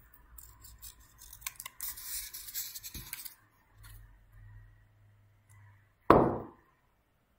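Scissors snipping paper and paper rustling, with the scissors set down on the table with a knock about three seconds in. A loud sharp thump about six seconds in.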